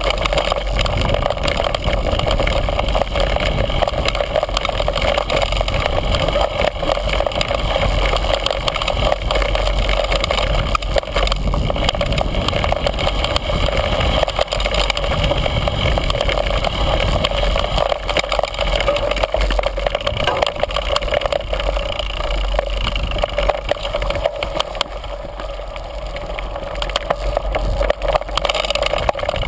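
Mountain bike riding fast down a rough dirt forest trail, heard from a camera mounted on the bike: continuous rattling and tyre noise over the ground, with a steady low rumble.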